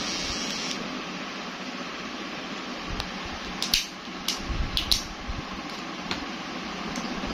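Steady background hiss, with several short sharp clicks and rustles between about three and five seconds in from a hair clipper and its cardboard box being handled.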